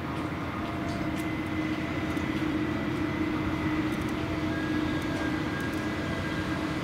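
Steady drone of diesel machinery as a sand carrier's grab crane hoists a loaded clamshell bucket out of the hold, growing a little louder about a second in, with a faint steady whine above the hum.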